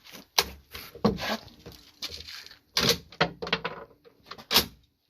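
A series of sharp metallic clicks and clacks with rustling in between, about five distinct knocks: an M1 Garand rifle being handled and worked at the bench.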